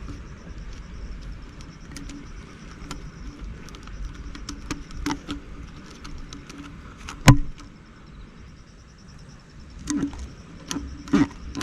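An insect trills in a faint, evenly pulsing high tone over a steady low rumble of wind or water. Scattered sharp clicks and knocks cut in, the loudest about seven seconds in and several more near the end.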